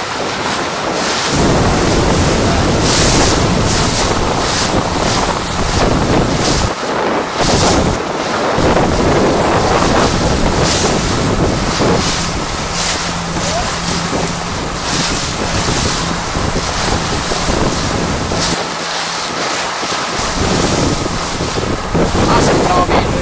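Wind buffeting the microphone over the rush and slap of choppy sea water beside a moving boat. A faint steady hum runs underneath from about halfway through to near the end.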